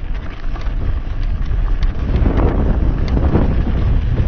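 Wind buffeting a helmet camera's microphone as a mountain bike rolls along a dirt trail, with a low rumble of tyres on the ground and scattered small clicks and crunches. It gets louder about two seconds in.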